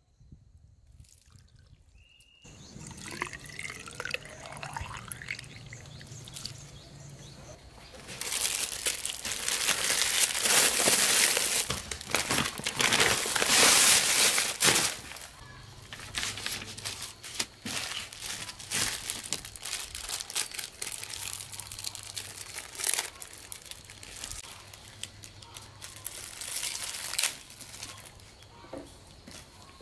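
Water poured from a plastic tub into a bamboo tube. Then, from about eight seconds in, a plastic carrier bag rustles and crinkles loudly for several seconds. After that, quieter crinkling of plastic packets being opened.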